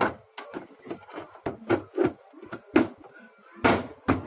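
Irregular series of sharp plastic knocks and clacks as the washing machine's cover panel is handled and pressed into place, with a few louder knocks near the end.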